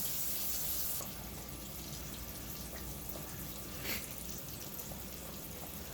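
Battered salmon fillets deep frying in oil at about 340 °F: a steady sizzle with light crackle. The highest hiss drops off abruptly about a second in, and there is a single louder pop about four seconds in.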